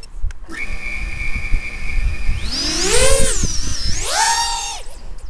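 Brushless Armattan Oomph 1407 3850kv motors of a 4-inch FPV quadcopter whining steadily, then rising sharply in pitch and falling back twice as the throttle is punched.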